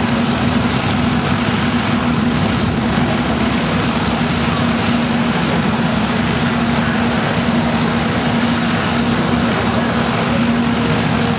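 Fuji T-3 trainers taxiing past one after another, their six-cylinder Lycoming piston engines and propellers running at low taxi power: a steady drone holding one constant note.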